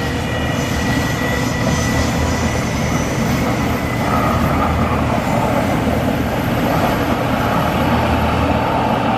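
Electric train passing, a steady loud rumble with rushing noise. Thin high-pitched whines fade out over the first few seconds.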